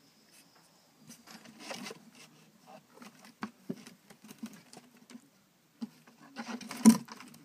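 Light, irregular taps and scuffs of a puppy's paws on brick paving, with a louder cluster of knocks and scuffling near the end.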